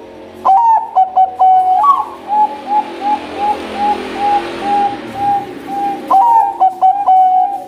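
Zebra dove (Bangkok-bred perkutut) singing: a sharp opening note and a few clipped coos, then a run of short even coos at about three a second. A second song starts about six seconds in.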